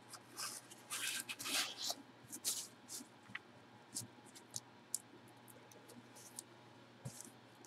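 Gloved hands handling a cardboard jersey box: quiet scraping and rustling over the first two seconds or so, then scattered light taps and clicks.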